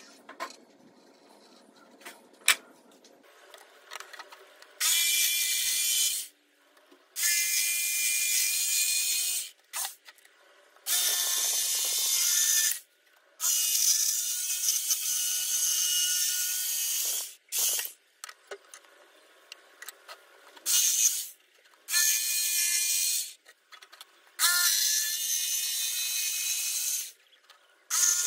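Electric jigsaw cutting a curve in a teak board, run in repeated bursts of one to four seconds with short stops between. The first few seconds hold only a few light clicks.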